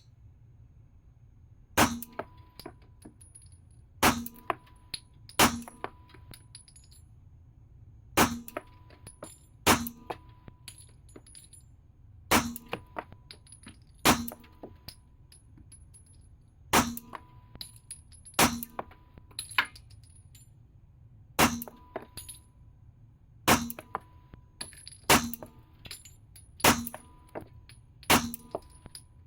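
Beretta 92F 9mm pistol fired in slow single shots, about fourteen, spaced a second and a half to three seconds apart. Each sharp report has a short metallic ring and is followed by a scatter of small clinks, like ejected brass cases landing.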